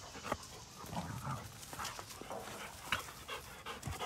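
Dogs playing together: a few short, low dog vocal sounds about a second in, among scuffling and scattered sharp knocks.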